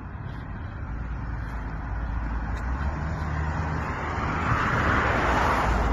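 A car passing on the nearby street: its tyre and engine noise grows steadily louder, loudest near the end.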